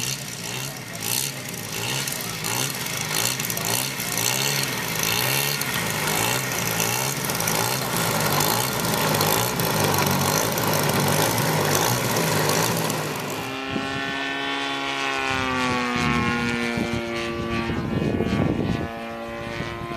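Engine of a giant-scale RC model warplane running rough and uneven close by, with the propeller turning. About two-thirds of the way in it gives way to the cleaner drone of a model plane in flight, its pitch dipping and then rising as it passes and the throttle changes.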